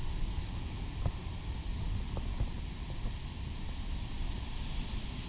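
Gusty wind buffeting the microphone as a low, uneven rumble, with a scattering of light ticks and cracks.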